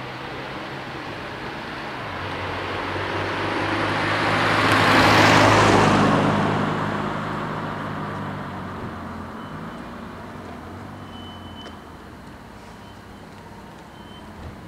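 A motor vehicle passing by, its engine hum and rushing noise swelling to a peak about five seconds in, then fading away.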